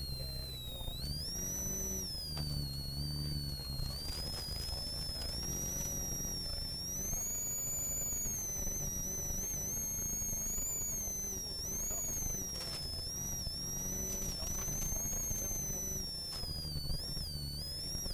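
Ford Sierra RS Cosworth rally car's turbocharged 2.0-litre four-cylinder heard from inside the cabin, revving up and down hard through the gears on a gravel stage, with a high turbo whistle rising and falling with the revs over the steady rumble of the engine and gravel.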